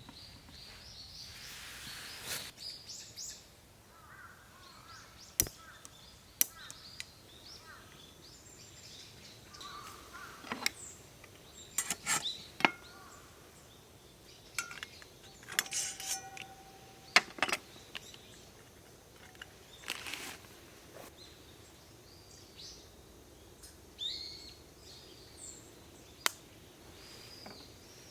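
Quiet outdoor camp ambience: scattered sharp clicks and knocks, with a few faint bird chirps here and there.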